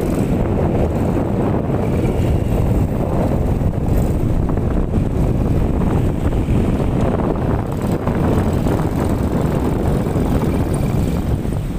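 A small ATV running steadily as it rides across the sand, mixed with wind noise on the microphone.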